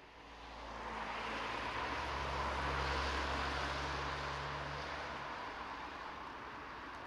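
A car passing by: tyre and engine noise swells over about three seconds and then slowly fades, with a low engine hum that drops out about five seconds in.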